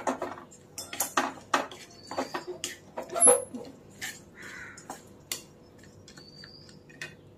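A spoon scraping and knocking against an iron kadhai as chopped almonds and cashews are stirred and warmed in a little ghee. It is an irregular clatter of a few strokes a second, loudest a little past the middle and thinning out over the last couple of seconds.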